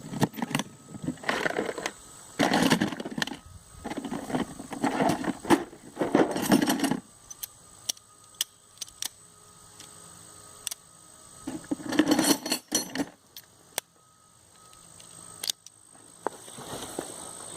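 Hand tools and small metal parts being handled while fitting and clamping a lawnmower fuel line: scattered clinks and clicks with a few short bursts of rattling and rustling.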